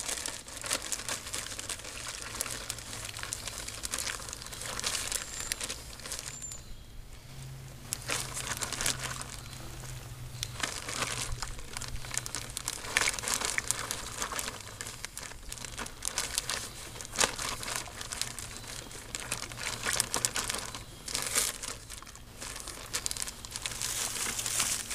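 Clear plastic bag of casting mix crinkling as it is handled, squeezed and twisted shut, in irregular bursts with a short lull about seven seconds in.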